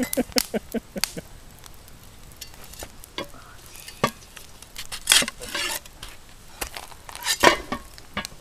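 Popcorn popping in a pot over a campfire: scattered single sharp pops a second or so apart, with a couple of longer rasping sounds from the pot about five and seven seconds in.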